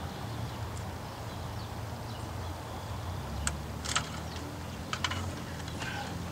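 Plastic dash trim bezel being worked loose from its clips: a handful of sharp clicks and snaps from about halfway through, over a steady low hum.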